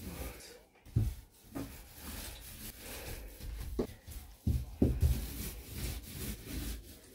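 Paint roller being rolled up and down a wooden plank door, a rubbing sound, with several dull knocks as the roller presses and bumps against the door, the loudest about a second in and three in quick succession near the five-second mark.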